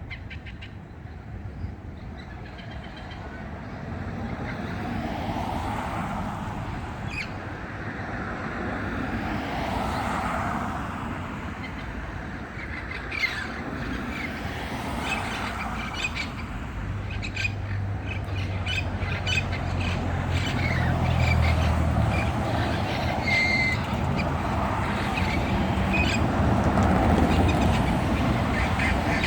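A flock of parrots squawking and chattering together, many overlapping harsh calls without pause. In the second half a low rumble sits underneath.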